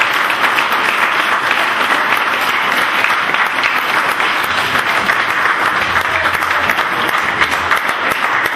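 Audience applauding: many people clapping steadily together, a dense even patter of claps.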